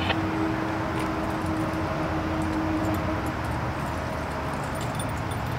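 Light metallic clinks and jingling from trailer safety chains and a bunch of keys, over a steady low rumble.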